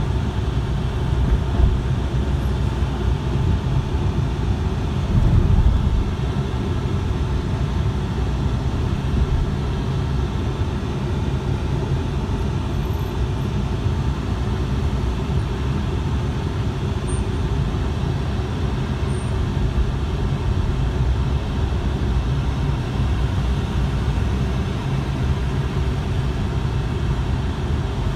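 Steady road and engine noise inside a moving car's cabin: a low rumble of tyres and engine, with a brief louder swell about five seconds in.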